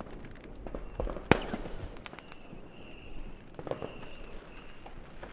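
New Year's Eve fireworks and firecrackers going off all around in scattered bangs and crackles, with one sharp, loud bang just over a second in and a faint high whistle in the middle.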